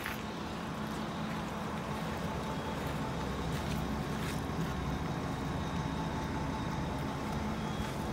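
Isuzu Gala coach's diesel engine idling steadily, a low even rumble with a faint steady whine above it.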